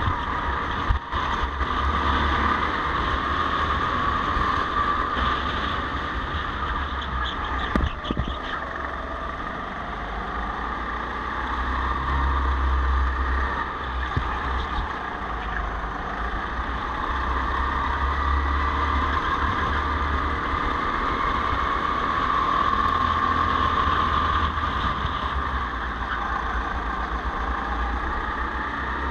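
Go-kart engine running under race load, its pitch rising and falling as the kart accelerates out of corners and slows into them, with a low rumble of wind on the helmet-mounted microphone. A sharp knock comes about a second in and another near eight seconds.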